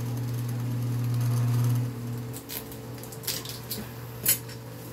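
A steady low hum, louder for the first two seconds, with several sharp plastic clicks and crackles in the second half as a plastic drink bottle is handled and the red seal ring is pulled off its cap. The loudest click comes near the end.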